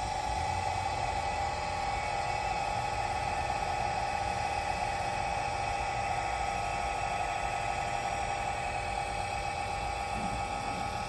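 Matsumoto Kikai RD-5-INW turning roll's motor and drive running steadily in reverse after being turned down in speed: a constant whine over a mechanical hum.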